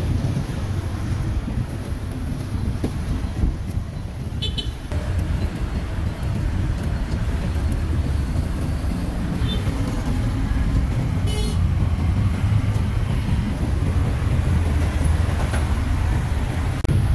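Busy city street traffic: a steady engine rumble from passing vehicles, with two brief high-pitched beeps, about four and eleven seconds in.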